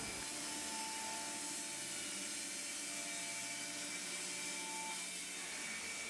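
Wood-Mizer LT15 electric band sawmill running, its thin-kerf blade cutting through a teak log: a steady, low-level machine hum and blade noise with a few faint steady tones.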